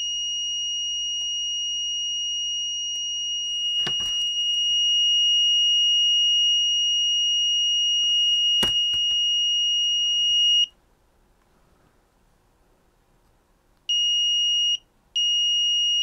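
Small breadboard buzzer driven by an Arduino, giving one steady high-pitched tone: the alarm that the sketch switches on while the joystick is held with x above 600 and y below 300. The tone cuts off about ten seconds in and comes back a few seconds later, with one brief dropout near the end. A sharp click sounds about nine seconds in.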